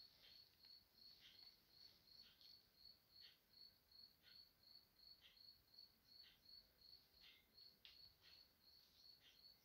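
Faint night-time crickets chirping in a steady pulsing rhythm, about four chirps a second, with fainter soft ticks about once a second.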